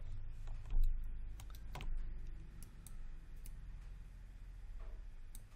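Irregular clicks from a computer mouse and keyboard, about ten short sharp clicks spaced unevenly, over a steady low hum.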